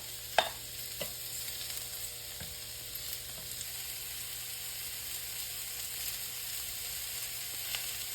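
Sliced cremini mushrooms and shallots sizzling steadily in olive oil in a pan, with a couple of sharp clicks within the first second.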